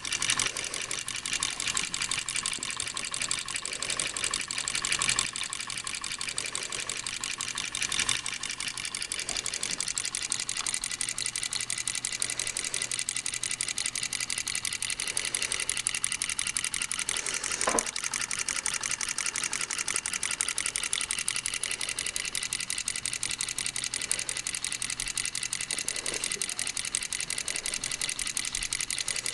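Model electromagnetic beam engine of brass and steel running steadily. Its two solenoid coils drive the plungers, rocker beam and flywheel, making a fast, even mechanical clatter.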